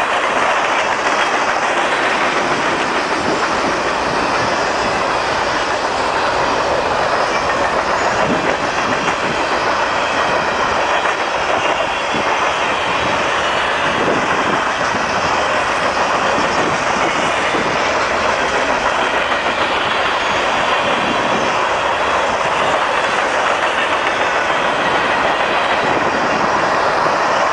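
Empty covered grain hopper cars of a freight train rolling past at about 45 mph: a loud, steady rush of steel wheels running on the rails.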